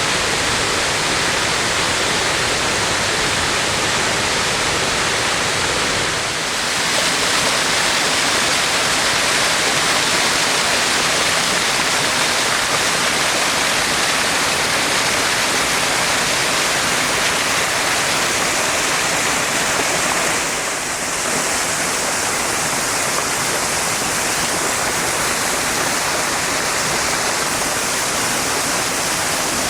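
Waterfall: a loud, steady rush of falling water, dipping briefly twice, about six seconds in and again about twenty seconds in.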